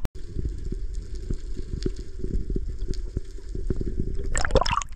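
3 hp outboard motor running at a steady hum, with irregular knocks throughout. Near the end a loud rushing burst cuts across it.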